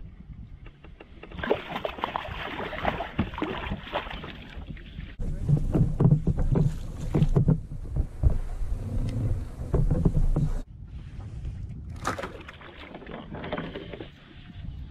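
Splashing water and knocks against a plastic kayak hull as a hooked rainbow trout is drawn alongside and scooped into a landing net, with irregular splashes and thumps that are heaviest in the middle and ease off about two thirds of the way through.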